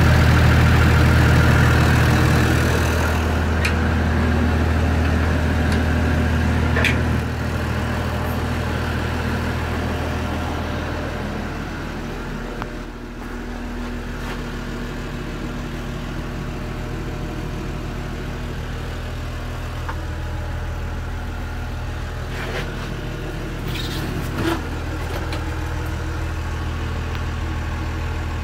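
Timberjack forestry machine's diesel engine idling steadily. It is loudest at first and drops in level a few seconds in, again around seven seconds and near twelve seconds, becoming muffled as heard from inside the cab. A few light clicks and knocks sound over it.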